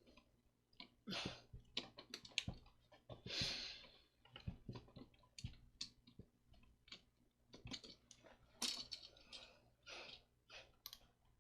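Faint, irregular clicks and a few short scraping rustles from a plastic wall outlet and its stiff wires being handled and pushed into place.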